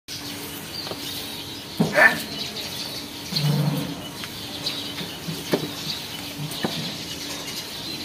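Caged common hill mynas calling. A sharp click and a short rising call come about two seconds in, a low call follows a little later, and a few short clicks come after that.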